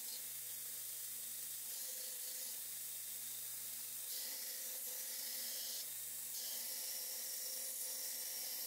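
Belt grinder set up as a surface grinder, its abrasive belt grinding the flats of Damascus steel blanks clamped in a sliding fixture: a quiet steady hiss over a low motor hum, the hiss swelling and easing a few times as the blanks pass the wheel.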